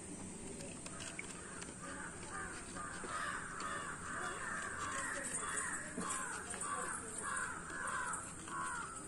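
A crow cawing over and over, a long run of harsh calls starting about a second in and going on until near the end.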